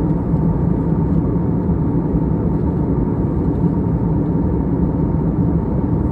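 Jet airliner cabin noise in flight: a steady deep rumble of engines and rushing air, with a faint constant hum on top.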